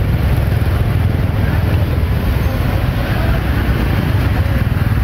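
Heavy rain falling, a steady hiss over a deep low rumble, with faint voices of people in the background.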